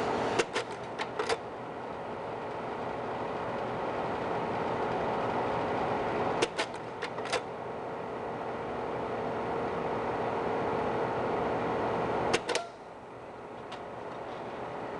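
Slide projector's fan running with a steady hum, while the slide-change mechanism clacks through a quick run of clicks three times, about every six seconds; the last run is shortest, and the hum dips briefly after it.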